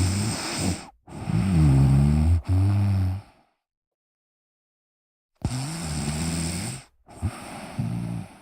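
A person snoring: low-pitched snore breaths, each a second or two long, in pairs with a silent gap of about two seconds near the middle.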